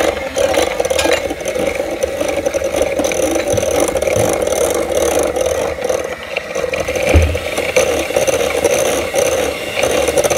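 Electric mixer running at a steady pitch, beating eggs and vanilla extract into the batter, with a rattling, churning noise over its motor hum.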